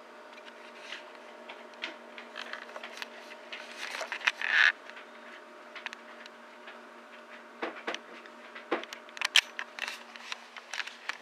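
Faint scattered clicks and rustles over a steady low hum, with a short hiss about four and a half seconds in and a run of sharper clicks near the end.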